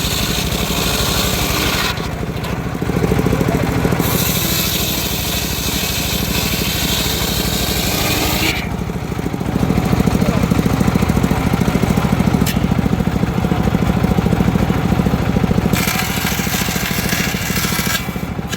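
Homemade engine-driven circular sawmill running steadily, its blade cutting through old teak in stretches of bright hiss. The hiss breaks off about two seconds in, comes back, stops again a little past the middle, and returns briefly near the end over the constant engine drone.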